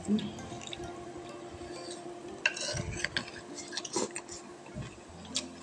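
Spoons clinking and scraping against plates and bowls during a meal: scattered small, light clicks.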